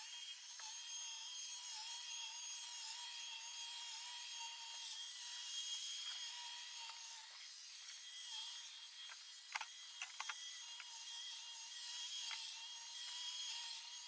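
Roborock S5 robot vacuum running over carpet on its standard suction setting, in sped-up footage, so its motor sounds as a thin, high whine with a wavering tone. A quick cluster of clicks comes about two-thirds of the way through.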